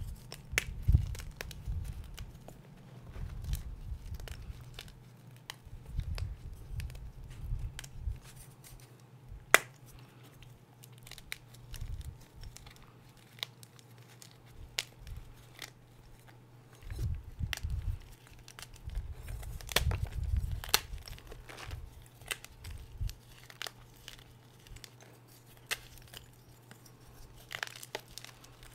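Hands crushing a block of gym chalk into chunks: dry crunching and crumbling, with sharp snaps as pieces break off, over a steady low hum.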